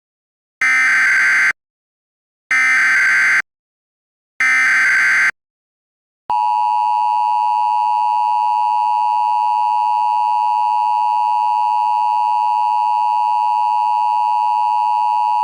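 Emergency Alert System audio: three SAME digital data bursts, each a warbling electronic squawk about a second long with a second's gap between them. They are followed about six seconds in by the long, steady EAS attention tone, which holds without a break for about ten seconds.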